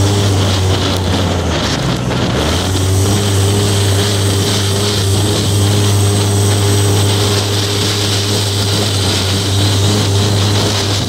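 Polaris RZR 800's twin-cylinder engine running hard under load as the side-by-side drives a dirt track, a steady drone that eases briefly about two seconds in, then comes back up.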